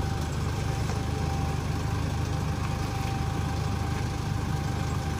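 A steady engine drone with a thin, constant high whine over it.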